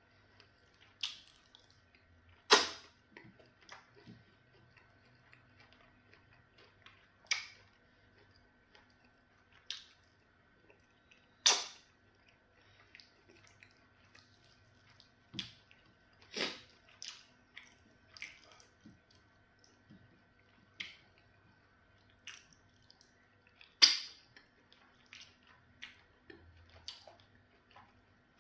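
Close-up eating sounds of pounded yam fufu with okra soup eaten by hand: scattered wet mouth smacks, chewing and sharp clicks, with three louder smacks a few seconds in, about halfway, and near the end. A faint steady hum runs beneath.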